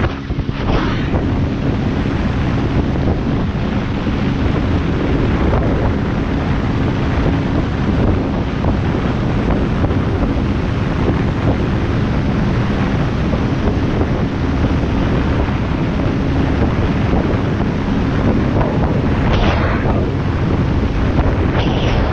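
Steady rush of wind buffeting the microphone and water spraying as a barefoot water skier skims across the lake, over a faint low steady hum from the towboat's engine. Brief louder whooshes come near the start and twice near the end.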